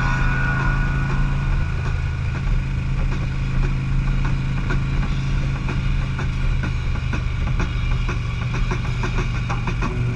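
Engine of a 2003 Harley-Davidson Electra Glide Classic, a V-twin, running steadily with a low even rumble while the motorcycle rides up a winding mountain road.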